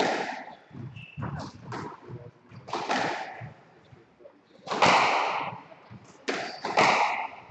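Squash rally: the ball struck by the rackets and smacking off the court walls, a series of sharp cracks at an uneven pace, each with a short echo in the enclosed court.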